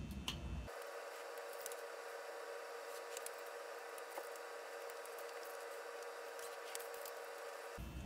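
Faint scratching and scattered light ticks of an ice pick scribing layout lines on a galvanized steel sheet, over a thin hiss.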